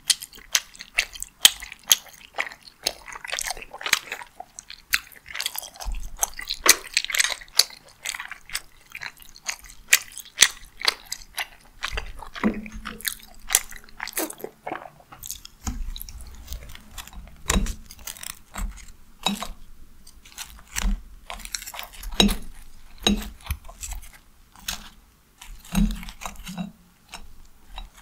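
Close-miked chewing of tteokbokki rice cakes in sauce: a dense, irregular run of wet mouth clicks and smacks, with some dull low thuds in the second half.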